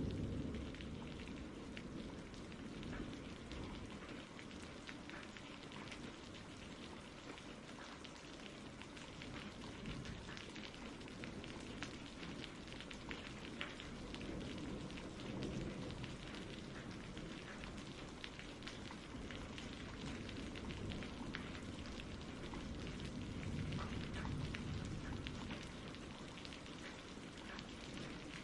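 Steady rain falling, a dense patter of drops, with a low rumble swelling up twice.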